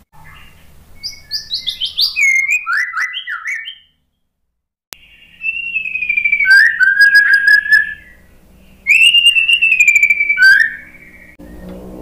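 White-rumped shama song: a run of quick, falling whistled notes, then after a short break two long, loud whistled phrases that slur up and down.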